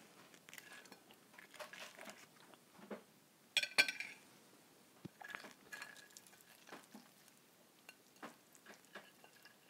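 Quiet eating sounds: soft chewing and scattered faint clicks of food and cutlery. About three and a half seconds in, a knife is set down on the plate with a short ringing clink, the loudest sound.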